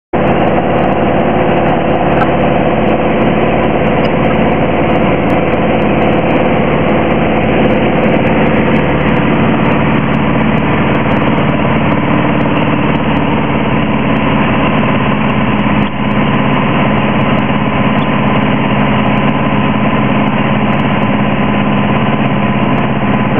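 Piper Arrow's engine and propeller droning steadily, heard from inside the cabin on the descent to land. The drone dips briefly about two-thirds of the way through and then settles a little lower in tone.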